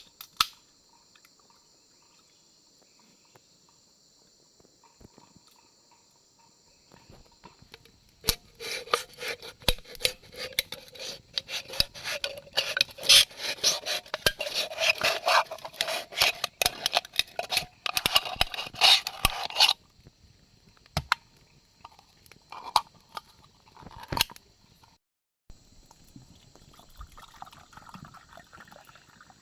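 Liquid being poured into a container for about eleven seconds, splashing and crackling, its pitch rising as the vessel fills. Before and after, a steady high chirring of insects and a few light knocks.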